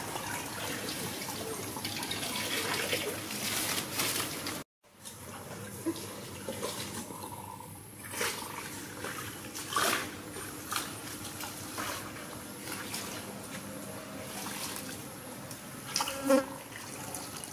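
Outdoor insect buzzing over a steady high-pitched drone, with a few brief rustles. The sound cuts out for a moment just before five seconds in.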